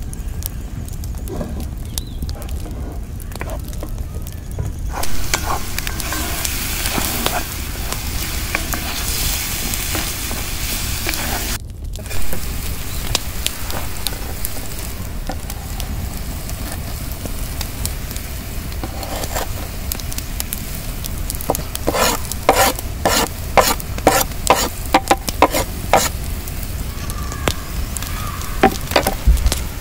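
Mashed grilled eggplant sizzling in hot oil in a Lodge cast-iron skillet over a wood fire, while a wooden spatula stirs it and scrapes the pan bottom to keep it from sticking. Near the end comes a quick run of sharp spatula scrapes against the iron.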